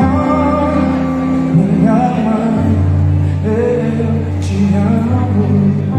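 Live worship music: sustained keyboard chords and bass with faint singing over them.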